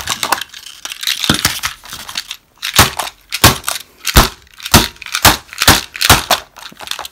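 A toy train engine banged again and again onto a plastic blister pack: about a dozen sharp knocks with crunching of the clear plastic bubble as it is crushed, coming about twice a second in the second half.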